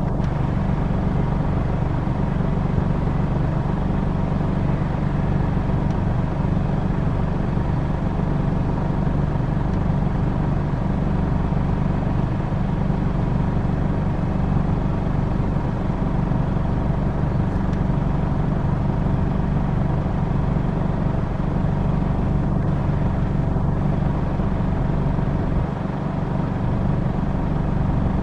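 Fendt Ideal 9T combine harvester running steadily at work, a low, even engine drone with steady machine hum and no change in pace.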